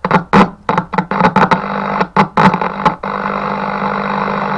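Yaesu FRG-7 shortwave receiver's speaker buzzing with mains noise fed in through a length of wire touched to an IF-section test point, with crackles and pops in the first two seconds, then a steady buzz. It shows the receiver's IF and audio stages are working.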